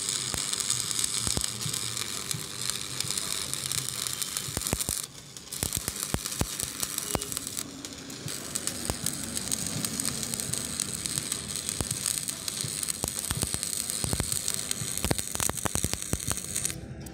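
Stick (arc) welding on steel pipe bars: the electrode's arc gives a steady crackling sizzle, dense with small pops, broken off briefly about five seconds in.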